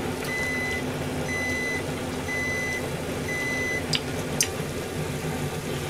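An electronic kitchen-appliance alarm beeping: four evenly spaced high beeps, each about half a second long, one a second, stopping before the middle, over a steady low hum. A couple of sharp clicks follow, a metal spoon knocking against the pot.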